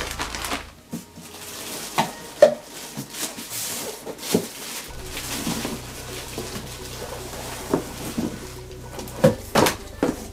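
Plastic packaging crinkling and a cardboard box being handled, with scattered sharp knocks and taps; the loudest come about two and a half seconds in and again near the end.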